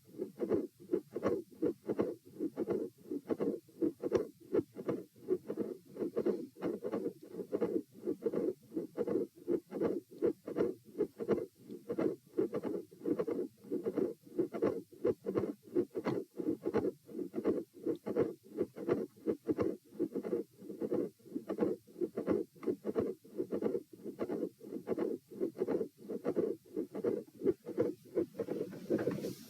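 Heartbeat heard through a stethoscope at Erb's point, a steady rhythm of lub-dub beats. The heart has a midsystolic click and murmur and a split second heart sound.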